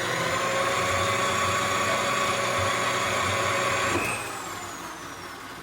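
Electric wire-stripping machine running with a steady motor whine and grinding hiss as a length of #1 copper wire passes through its cutter. About four seconds in the sound changes abruptly and the whine glides down in pitch and fades as the motor winds down.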